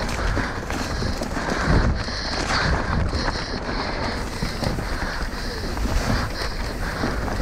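Mountain bike descending a rough, rocky trail at race speed: tyres and frame clattering over rocks with a continuous rumble, and wind buffeting the microphone.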